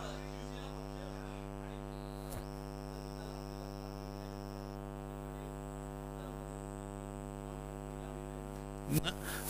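Steady electrical mains hum in the microphone feed, a low buzz with many evenly spaced overtones. There is a faint click about two and a half seconds in and a short burst of noise near the end.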